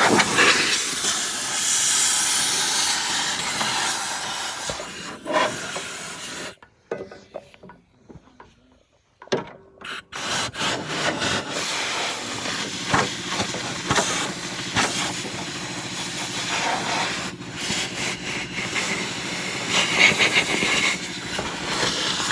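A loud, steady hiss in two long stretches, broken by a pause about seven to nine seconds in, with scattered knocks during the second stretch.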